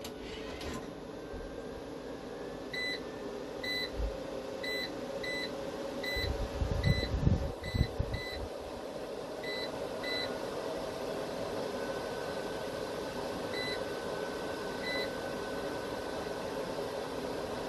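A dozen or so short, high electronic beeps at uneven intervals, over a steady electrical hum from the inverter equipment under the load of a starting well pump. A few low thumps come about six to eight seconds in.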